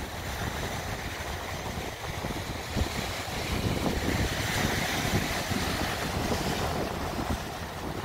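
Sea waves breaking and washing onto the beach, a rushing hiss that swells in the middle and eases off toward the end, with wind buffeting the microphone in gusty low rumbles.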